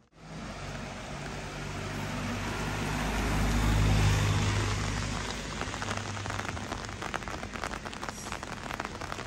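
A motor vehicle passing slowly: engine hum and road noise swell to a peak about four seconds in, then fade away.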